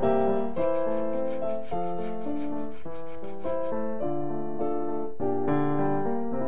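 Piano music with a fast, even scraping over it, about five strokes a second, from a thin slice of stone being filed to shape by hand. The scraping stops a little past halfway and the piano carries on.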